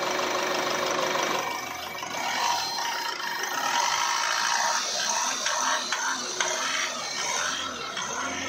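Car engine idling steadily, heard from over the open engine bay.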